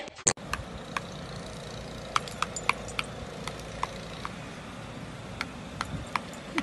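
Steady hiss with scattered short metallic clinks and ticks, irregularly spaced.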